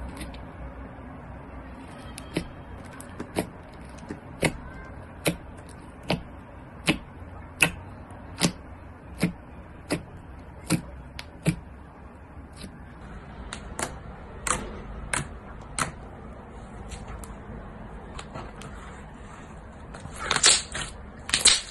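Fingers pressing and poking into soft white slime in a plastic tub, each press giving a sharp click or pop, about one a second. Near the end the slime is pulled and stretched, giving a louder run of sticky crackling.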